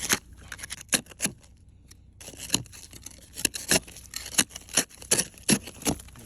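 Ice crunching and cracking in a string of short, sharp strokes, about two to three a second from the middle on, over a faint low steady rumble.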